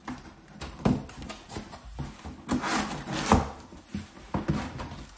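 Cardboard box being opened by hand: the flaps and a packing sheet are lifted and folded back, with cardboard scraping, paper rustling and a few sharp knocks, the loudest past the halfway point.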